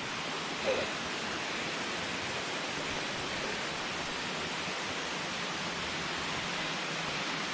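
Steady rushing of a waterfall and the river below it: an even, unchanging wash of water noise.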